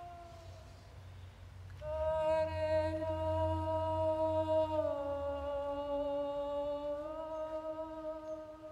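Slow background music of long held notes over a low drone. A note fades out early, a new one enters about two seconds in, the pitch steps down about five seconds in, and it steps back up near seven seconds.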